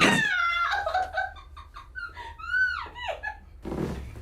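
A sharp spinal crack right at the start, from a chiropractic adjustment, followed by a high-pitched voice letting out a long falling "ooh" and then wordless laughing cries.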